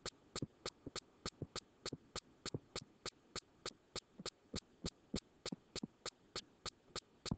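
Faint, very regular clicking, about three clicks a second, steady throughout.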